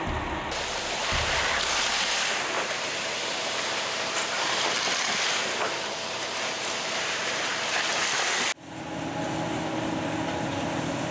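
Steady rushing noise of machinery running, like a vehicle engine, at a construction site. About eight and a half seconds in it cuts off abruptly and is replaced by a steadier hum with a few held low tones.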